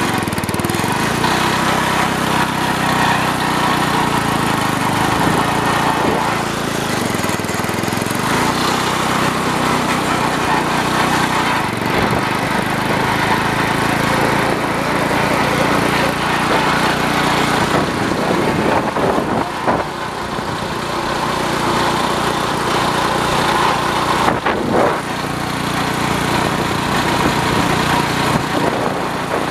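Small single-engine riding lawn tractor running steadily while being driven, its engine note continuous throughout.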